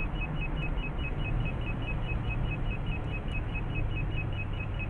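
Car cabin noise at highway speed, tyres and engine running steadily, under a radar detector's alert: a rapid, even two-tone beeping, several beeps a second, warning of a speed radar ahead.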